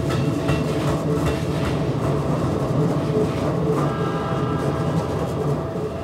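Keikyu electric train cars passing over a level crossing: a steady low rumble with wheel clatter over the rail joints. The crossing's warning bells ring over it, and higher tones come in about four seconds in.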